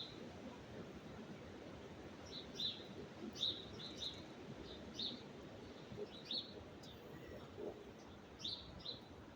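A small bird chirping in short high notes, irregularly about once a second, over a steady low rush of wind.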